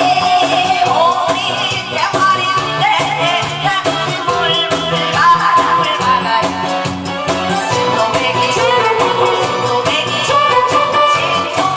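A woman singing a Korean trot song into a microphone over a loud backing track with a steady beat.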